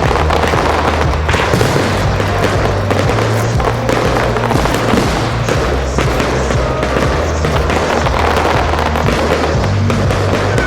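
Fireworks bursting in quick succession, a dense run of bangs and crackles, over loud music with a steady bass.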